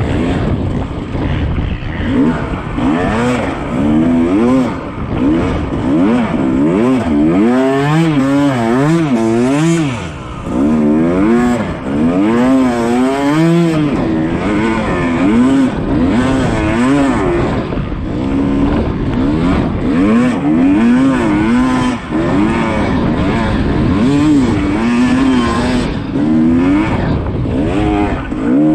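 Yamaha YZ250 two-stroke dirt bike engine being ridden hard, its pitch rising and falling every half second or so as the throttle is worked on and off.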